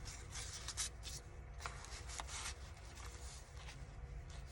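Paper rustling and sliding as the pages and a tag of a handmade paper journal are handled: several soft brushes in the first half, fainter after.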